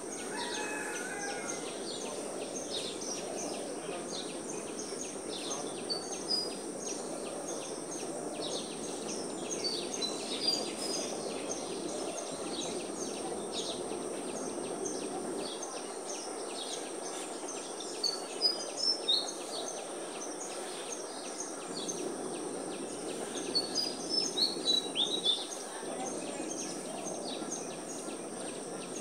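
Outdoor ambience: small birds chirping in short high bursts, loudest in two clusters, a little past halfway and again near the end, over a steady high insect buzz and a low background hum.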